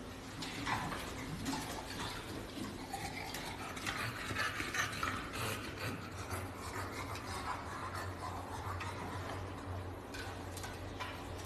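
English bulldog sliding down wooden stairs on its belly, its body scraping along the treads with small bumps as it drops from step to step.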